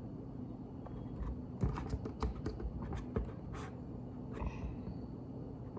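Plastic Lego bricks clicking and rattling as pieces are handled and pressed together, a quick run of small clicks in the middle with a few more near the end.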